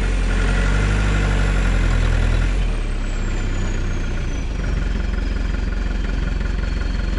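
Modified Mahindra jeep's Scorpio engine running steadily, its note shifting slightly a little under three seconds in.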